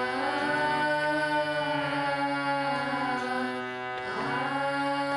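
Indian classical-style vocal music: a voice singing long held notes that slide up and down in pitch, with a fresh sliding phrase about four seconds in.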